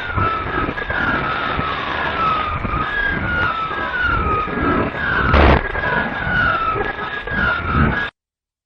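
Edited radio audio played in reverse: a string of short, wavering, mostly falling tones that sound like a siren, over a noisy rumbling bed, with a loud short burst about five and a half seconds in. It cuts off abruptly near the end, leaving dead silence.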